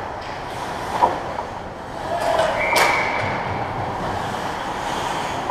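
Ice hockey play on a rink: a steady hiss of skates scraping the ice, with a sharp knock about a second in and a louder crack near three seconds, stick-on-puck or puck-on-boards hits.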